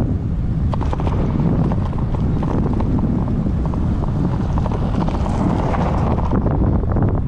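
Wind buffeting the microphone of a handlebar-mounted action camera on a bicycle in motion, with tyre and road rumble and scattered light clicks and rattles.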